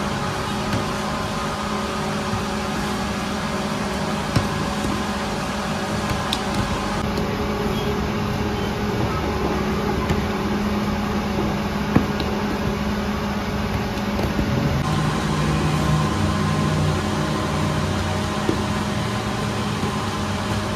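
Steady mechanical hum of bakery machinery, such as fans and the oven's burner, with a few faint knocks from dough being handled.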